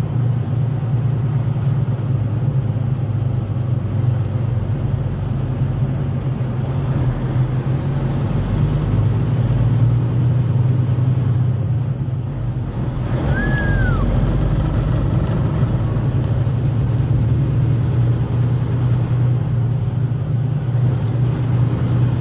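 Steady engine and road noise of a vehicle moving along the highway, heard from inside its cab, with a brief high chirp about halfway through.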